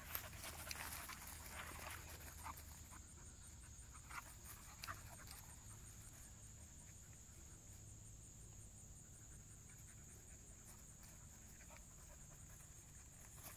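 Faint panting and scuffling of two young dogs playing on grass, with a few small ticks in the first few seconds, then fading to near silence.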